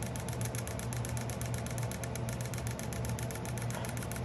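Suzuki Hayabusa fuel injectors, off the engine on a cleaning rig, being pulsed open and shut by hand to flush cleaner through them: a fast, even clicking of about ten clicks a second over a steady low hum.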